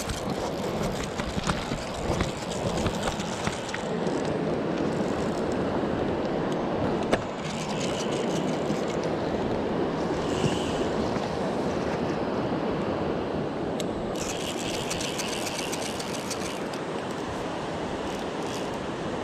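Steady rush of river water. About 14 seconds in there is a quick run of fine ticking lasting two or three seconds, like a fly reel's click as line is wound in or taken out by the hooked trout, with scattered handling clicks early on.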